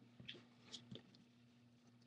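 Faint light clicks and scratching of fingers working at the LCD cable connection inside an opened iPad 3, a few small ticks in the first second, over a low steady hum.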